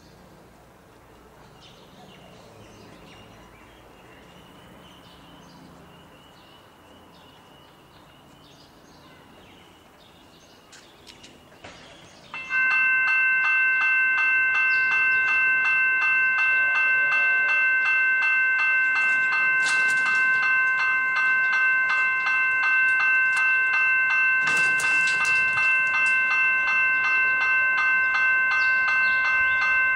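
Railway level crossing bell starts ringing about twelve seconds in and keeps ringing loudly and steadily for the rest of the time, the crossing's warning that a train is approaching. Before it, only a faint background.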